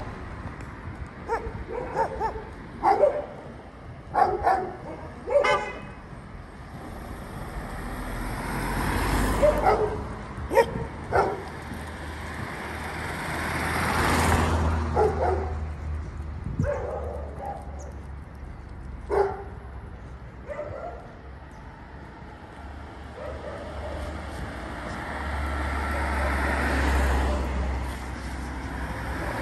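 Dogs barking in short, scattered barks, some in quick runs, while cars drive past on the street now and then.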